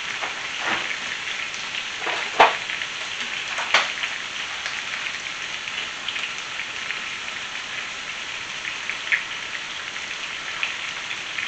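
Pork ribs with carrot and onion sizzling steadily in a frying pan while tomato paste is spooned in. A few sharp clicks stand out in the first four seconds.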